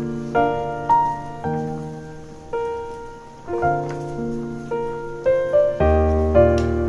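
Background instrumental music: a slow, gentle piano melody of single notes and chords, each note struck and left to fade. A deeper bass note joins about six seconds in.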